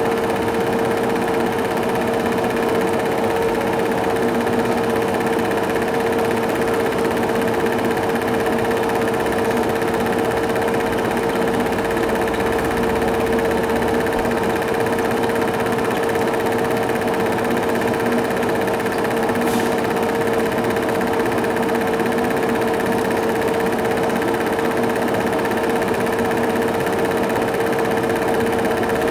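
Cine film projector running: a steady mechanical whirr with a constant pitched hum.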